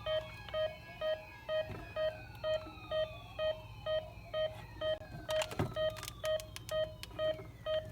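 Electronic alarm beeping steadily at about two short beeps a second, with faint slow falling tones underneath and a few sharp clicks about five and a half seconds in.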